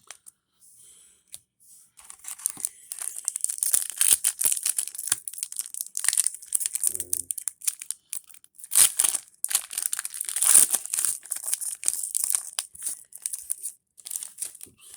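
Plastic and foil card packaging crinkling and tearing in the hands, a dense crackle that starts about two seconds in and keeps going.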